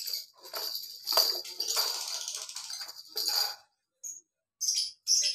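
A ball rolling and rattling around the plastic track of a circular cat track toy as a kitten bats at it, in irregular runs with a short pause a little before four seconds in.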